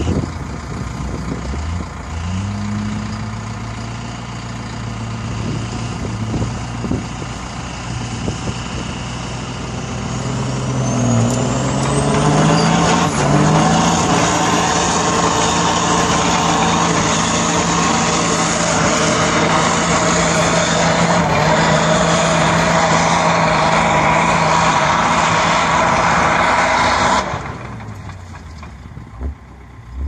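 A heavy vehicle's engine running, then revving up about ten seconds in with a high whine rising alongside, and held at high revs under load. It cuts off suddenly near the end.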